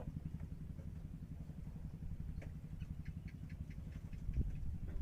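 A small engine idling, a low steady putter, with a quick run of light clicks about two and a half seconds in.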